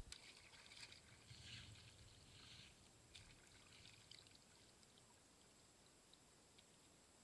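Faint splashing and dripping of river water off a speargun held at the surface, with a single sharp click right at the start; otherwise very quiet.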